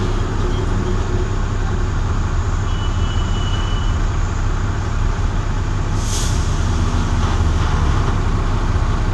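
Steady road-traffic noise from heavy vehicles running past, with a low hum throughout. A brief hiss comes about six seconds in.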